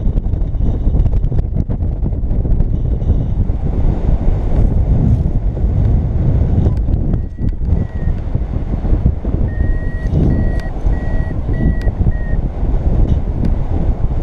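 Wind buffeting the camera microphone in flight, a constant low rumble. Over it, a paragliding variometer beeps at a high pitch, once about seven seconds in and then in a quick run of beeps from about nine and a half to twelve seconds, the beeping a variometer gives while the glider is climbing in lift.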